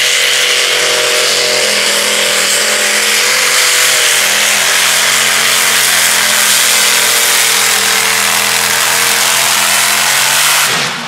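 Modified-class pulling tractor's engine held at full throttle and high revs while it drags the weight-transfer sled, with a steady, loud note. It drops off suddenly near the end as the run finishes.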